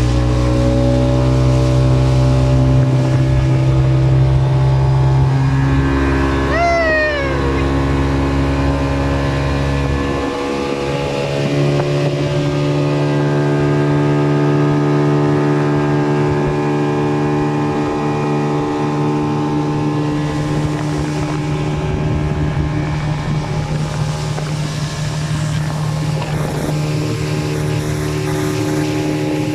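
Motorboat engine running steadily, its pitch stepping to new levels a few times. A brief falling tone cuts through about seven seconds in.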